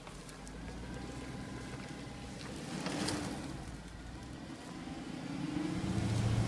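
Hummer H3 SUV's engine running under load as it pulls through soft ground, swelling louder and higher twice: about three seconds in and again near the end.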